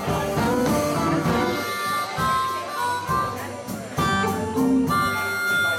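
Live blues band playing, with an amplified harmonica blown into a hand-cupped microphone over electric guitar and drums. The harmonica holds long notes, about two seconds in and again near the end.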